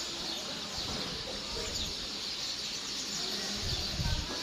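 Many small birds chirping together in a steady dense chorus of short high calls. A low rumble comes in near the end.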